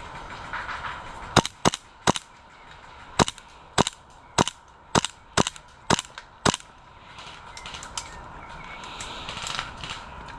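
Airsoft guns firing single shots: about ten sharp cracks roughly half a second apart starting about a second in, then a few fainter shots near the end.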